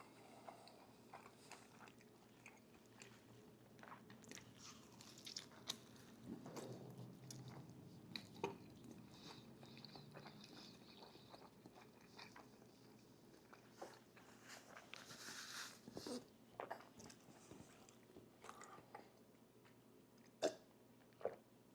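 Faint close-miked chewing and biting of breakfast food, with small crunches and wet mouth clicks at irregular intervals, and a few sharper clicks near the end.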